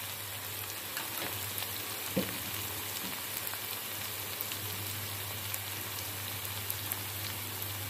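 Onions and tomatoes frying in oil in a non-stick kadhai, a steady soft sizzle with a few faint ticks and a low hum underneath. A short tick stands out about two seconds in.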